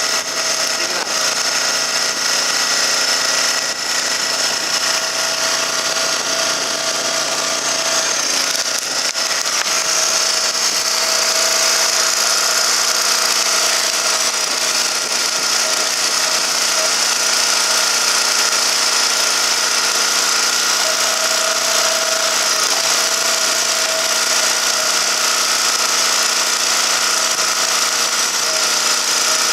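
Firewood splitting machine running steadily: a continuous motor noise with a high, even whine.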